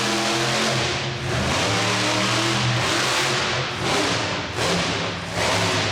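Monster truck engine running hard and revving, a loud roar that eases off briefly about a second in and again around four and five seconds in.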